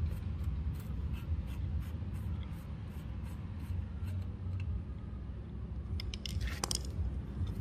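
Faint metallic scraping and light ticks of a threaded rod being screwed by hand through the socket spacer of an improvised piston-pin puller, with a few sharper clicks about six seconds in, over a steady low hum.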